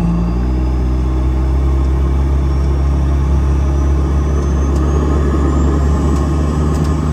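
A car driving, its engine running steadily with a low, even drone.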